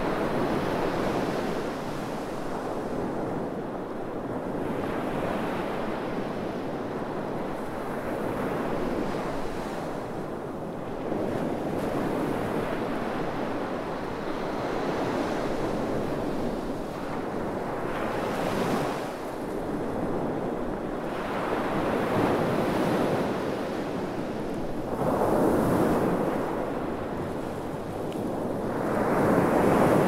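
Sea waves breaking on a sandy beach: a continuous wash of surf that swells and ebbs with each breaker. The biggest wave crashes near the end.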